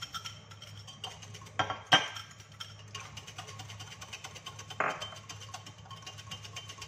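Egg and melted butter being beaten in a measuring jug with a utensil: fast, even clicking against the jug that starts about three seconds in. Before it there are a couple of sharp clinks as the small glass bowl knocks against the jug.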